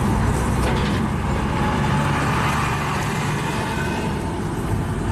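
Steady road noise inside a moving car's cabin: a continuous low rumble of tyres and engine.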